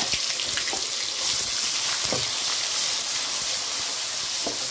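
Freshly added onion and garlic paste sizzling steadily in hot oil in an aluminium kadhai, the first frying of a curry masala, with a ladle stirring through it a few times.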